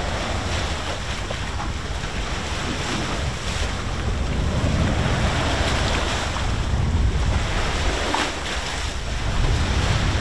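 Wind buffeting the microphone over the steady rush of breaking waves and water around a sailing catamaran under way at sea.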